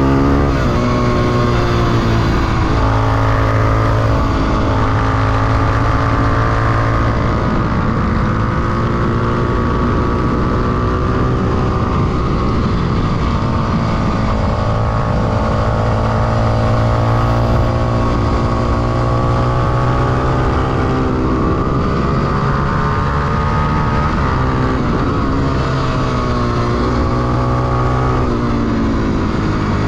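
Honda XR250 Tornado's single-cylinder four-stroke engine under hard riding on track, heard from the bike. Its revs drop sharply right at the start, then climb and fall in long sweeps through acceleration, gear changes and braking, dipping about halfway through and again near the end before climbing once more.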